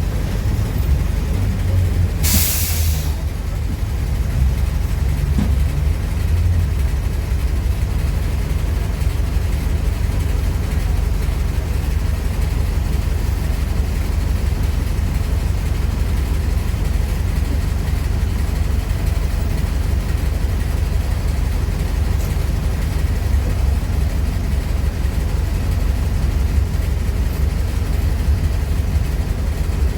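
Mercedes-Benz OF-1418 bus's diesel engine running steadily, with a short hiss of air about two seconds in.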